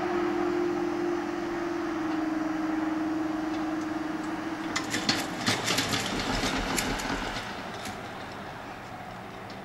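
InterCity 125 diesel train running away along the main line, a steady engine hum that stops about five seconds in, followed by a scatter of sharp clicks and rattles as the sound fades.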